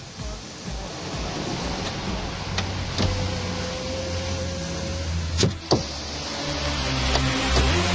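Car's electric power window motor running as the door glass slides in its channel, with a steady hum and two sharp clicks about five and a half seconds in as the glass stops and the switch is released.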